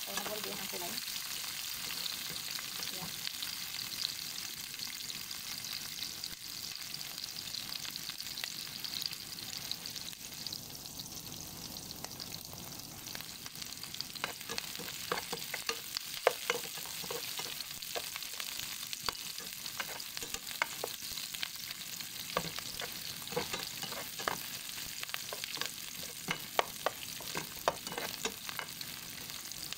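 Sliced onions sizzling in hot oil in a nonstick frying pan, stirred with a metal slotted spatula. Over the steady sizzle, the spatula scrapes and taps against the pan, more and more often from about halfway through.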